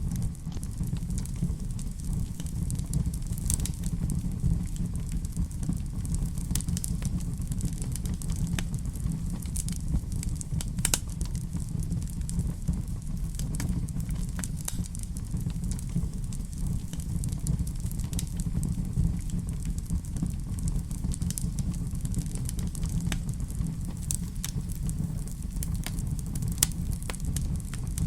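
Wood fire burning in a fireplace: a steady low rumble of flames with scattered crackles and pops.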